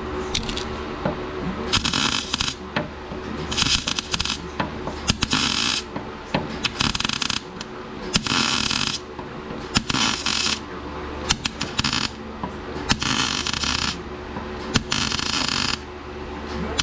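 Wire-feed welder laying short stitch welds: about nine crackling bursts, each roughly a second long, with brief pauses between, over a steady low electrical hum.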